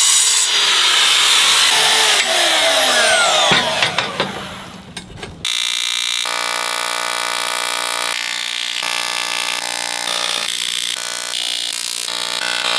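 A handheld power saw cuts through metal plate and winds down with a falling whine. Then a TIG welding arc buzzes steadily for most of the rest.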